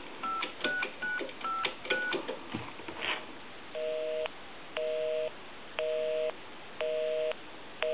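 Touch-tone dialing on a single-slot payphone keypad: about five quick dual-tone digit beeps in the first two seconds. About a second and a half later comes the busy signal, a two-tone beep sounding half a second and stopping half a second, about once a second. It means the dialed line is busy.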